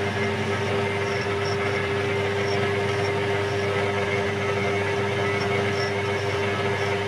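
Electric motor of a workshop machine running steadily with a constant hum and a clear steady tone.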